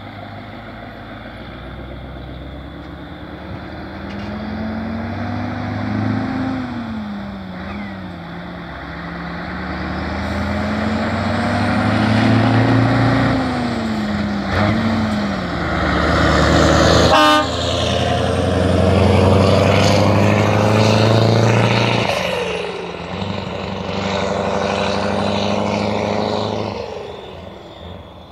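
Scania 143M 500's 14-litre V8 diesel pulling away through the gears: the revs climb and drop back twice, and the sound grows louder as the truck approaches and passes, then fades. A short sharp sound cuts in as it draws level.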